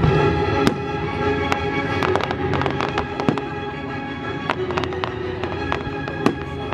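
Aerial fireworks going off in quick succession, sharp bangs and crackles every fraction of a second. Orchestral music plays underneath.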